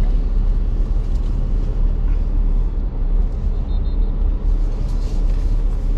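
Steady low road rumble of a vehicle on the move, with a faint short high beep about three and a half seconds in.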